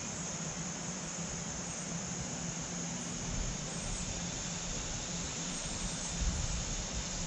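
A steady, high-pitched insect chorus, with a low rumble underneath.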